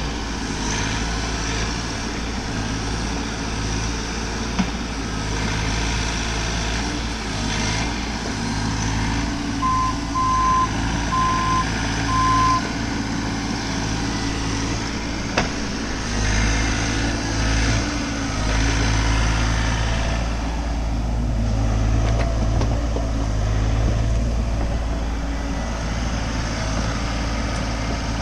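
Heavy earth-moving machine's engine running steadily while working dirt, with a backup alarm beeping four times about a third of the way in. The engine's low rumble grows heavier a little past halfway, as if working under more load.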